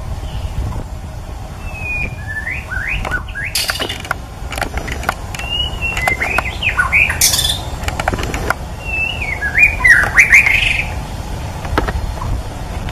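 White-rumped shama singing: three bursts of quick, varied whistled phrases with notes sliding up and down, sharp clicks among them, loudest near the end. A steady low rumble runs underneath.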